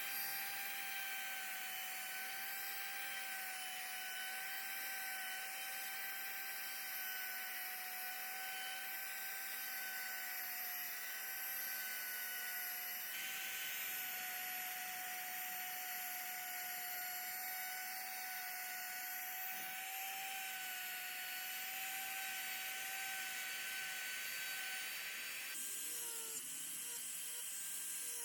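Electric wood router running under load as it carves wood, giving a steady high whine over a hiss. Near the end the whine's pitch shifts and wavers.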